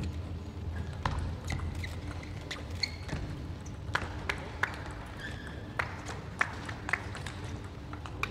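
Indoor sports hall ambience: a steady low hum with scattered sharp taps and short faint squeaks from around the hall.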